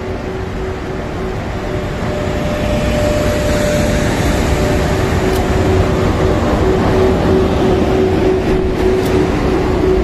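JR EF81 electric locomotive, followed by an EF64, rolling slowly past at a platform. The blowers give a steady hum, joined for a few seconds by a higher tone, over a wheel-and-rail rumble that grows louder.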